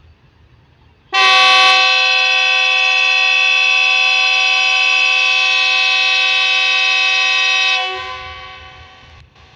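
Pakistan Railways GEU-40 diesel-electric locomotive's horn sounding one very long, steady blast of several tones at once, starting about a second in and dying away near the end: the horn sounded by an express ready for departure.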